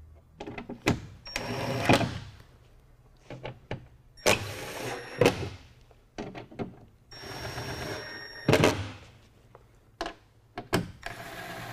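Cordless drill/driver driving screws back down into a pickup's tailgate trim strip, in four short runs of about a second each with a steady motor whine. Small clicks come between the runs.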